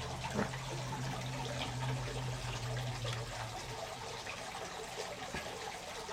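Garden fountain water trickling steadily, with a low steady hum that fades out a little past halfway.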